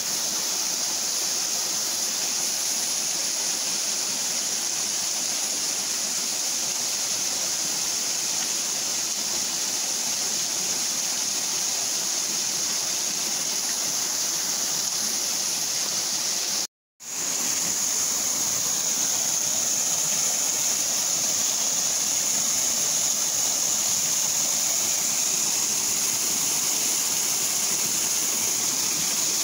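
A half-frozen waterfall's water rushing steadily with an even hiss. The sound cuts out completely for a split second a little past halfway, then carries on as before.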